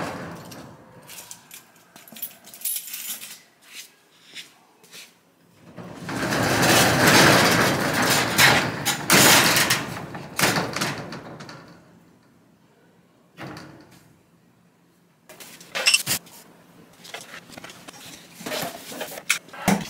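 Keys and a lock clicking, then a corrugated metal roll-up storage-unit door rattling loudly for about five seconds as it is pushed up open. Near the end come scattered knocks and clatter of boxes being moved.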